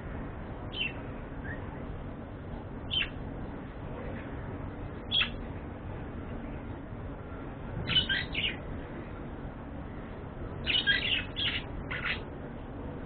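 Pet budgerigars chirping: single short chirps a few seconds apart, then two quick bursts of several chirps, about two-thirds of the way in and near the end, over a steady low background noise.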